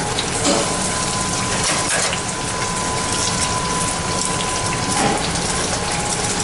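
Hot tempura oil sizzling steadily as shrimp tempura deep-fries, with a faint crackle and a thin steady tone that runs from about half a second in until about five seconds.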